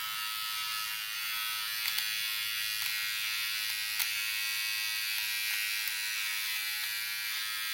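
Philips QT4011 beard trimmer running with nothing to cut, a steady even buzz, with a couple of faint ticks about two and four seconds in.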